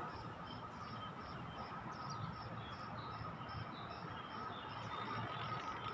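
Outdoor ambience among trees: short high chirps repeating evenly about three times a second over a steady hum and low background rumble.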